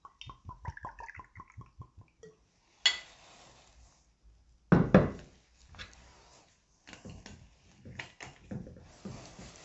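Orange liqueur glugging from a bottle into a small stemmed glass for about two seconds, the pitch rising as the glass fills. Then a sharp knock as the bottle is set down on the bar, a heavier thump a couple of seconds later, and light clicks near the end.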